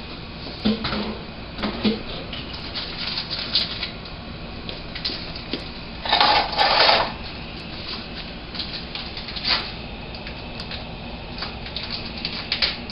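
Scattered clicks and knocks of kitchen things being handled, with a short burst of rushing noise about six seconds in.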